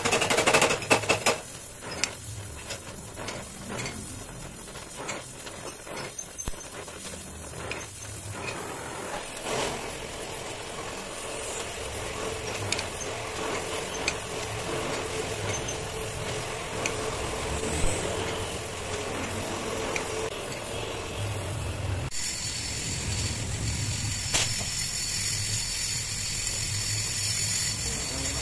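Gas welding torch flame hissing steadily while aluminium is welded onto a motorcycle engine crankcase with home-cast aluminium filler rods. A quick run of sharp metallic clicks and taps comes in the first several seconds, and the sound changes character about three quarters of the way through.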